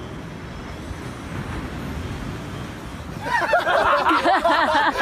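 Low wind rumble on the microphone. About three seconds in, several people break into loud laughing and shrieking.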